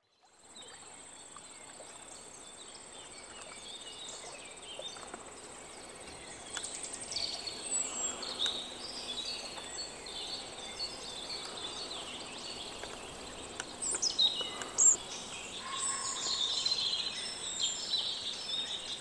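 Outdoor nature ambience: birds chirping and calling over a steady high-pitched insect trill, fading in and growing gradually louder.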